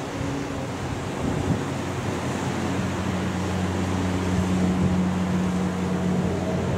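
ATR 72 turboprop airliner climbing out overhead: its propellers and engines give a steady low drone over a broad rushing noise, the hum growing louder about three seconds in as the plane comes closer.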